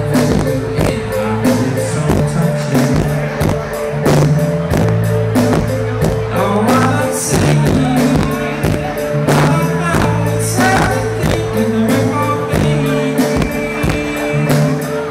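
Live indie rock band playing in a concert hall: sung vocals over sustained low keyboard bass notes and steady drum hits.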